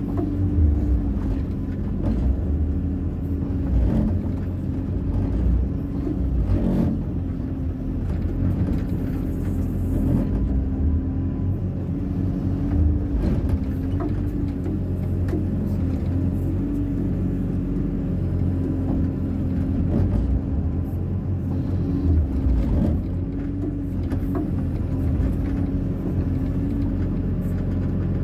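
Hyundai 140 wheeled excavator's diesel engine running steadily, its pitch wavering slightly as it works, with a few brief knocks.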